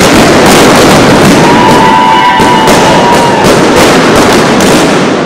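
Many balloons popping in quick, overlapping succession as people stomp on them, a dense crackle of pops.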